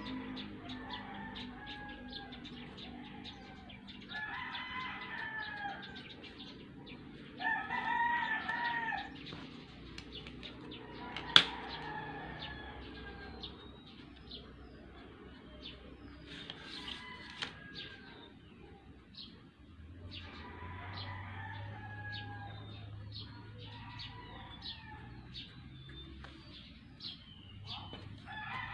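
Roosters crowing in the background, several drawn-out arching calls with the loudest about a quarter of the way in, over faint tapping and scratching of a pencil drawing short dashed lines along a plastic set-square. One sharp tap comes a little before the middle.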